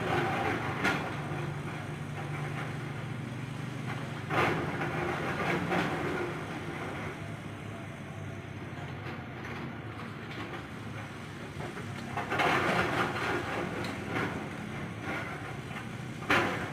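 Excavator's diesel engine running steadily, with louder bursts of clattering and grinding a few times as the machine works.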